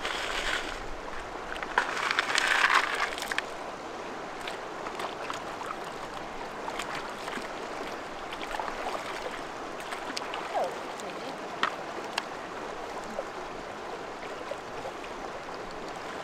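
Steady rush of a flowing river, with louder rustling and knocks in the first three seconds or so.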